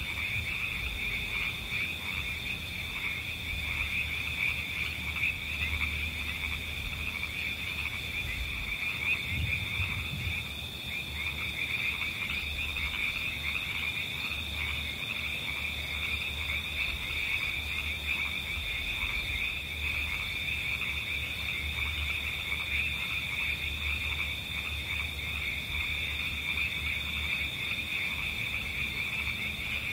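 A steady, high-pitched chorus of calling animals, its fast pulsing calls merging into an unbroken drone.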